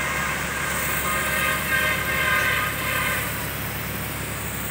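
Tractor engine running steadily to drive a crop-spraying pump. A higher steady whine rides over it, swelling about two seconds in and fading out about three seconds in.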